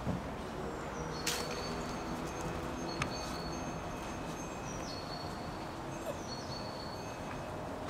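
Small birds chirping and whistling in short high calls, some falling slightly in pitch, over steady outdoor background noise, with a couple of sharp clicks.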